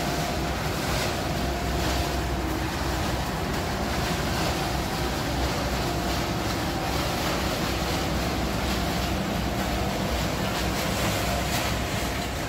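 Steady rumbling noise of waste-processing machinery running: the conveyor belt carrying shredded waste and the crusher it feeds, with a faint steady hum.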